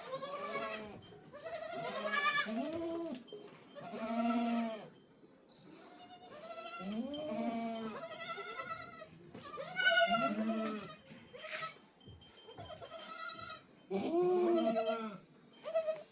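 Goats bleating over and over, many wavering calls about a second or two apart, some overlapping.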